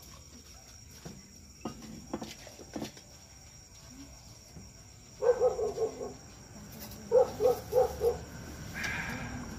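An animal calling in two quick runs of short pitched notes, about five a second, in the second half, over steady insect chirring. A few light knocks come earlier.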